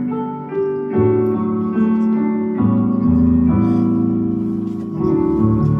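Aerophone digital wind instrument ensemble with cello and violin playing a slow run of held chords, each sustained a second or more before moving to the next.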